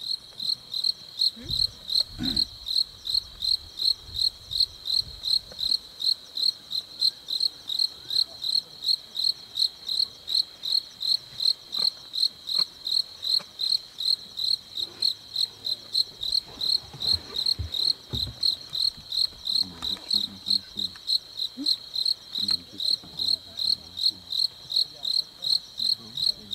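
A cricket chirping steadily and loudly, about two and a half evenly spaced chirps a second.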